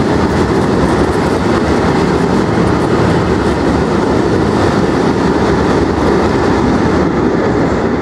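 Bogie tank wagons of a freight train passing at speed: a steady, loud rumble of steel wheels on the rails.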